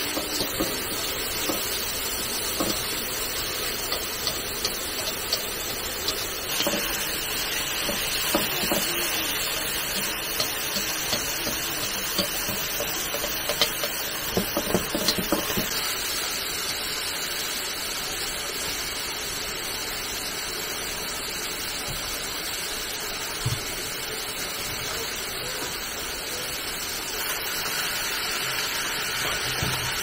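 Steady hiss of water, with scattered knocks and clatter of handling, busiest about halfway through.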